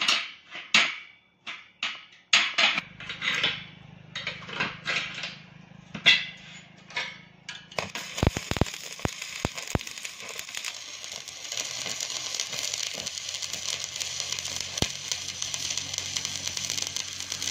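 A hammer strikes steel a dozen or so times, each blow sharp and briefly ringing, as a sliding bolt latch is tapped into line on a steel gate frame. About eight seconds in, a stick-welding electrode strikes an arc and runs with a steady crackle and hiss, over a low hum.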